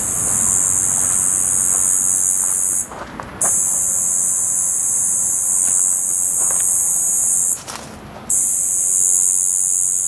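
A single cicada buzzing: a continuous, high-pitched, even drone that breaks off twice for about half a second and starts again.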